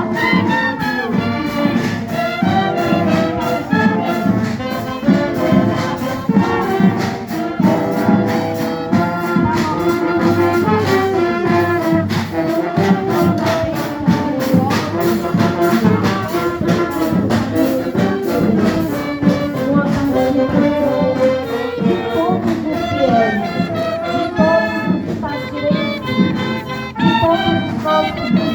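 Municipal brass band playing a march, trumpets and trombones carrying a tune over a steady beat.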